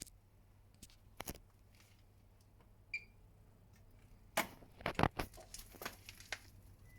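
Bosch Serie 8 washing machine: a few sharp clicks, a short high beep about three seconds in, then a quick cluster of clicks and knocks.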